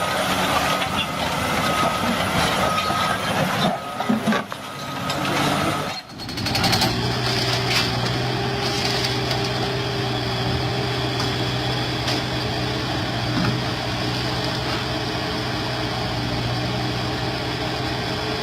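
Heavy machinery engine running, with an abrupt change about six seconds in to a steadier, lower drone.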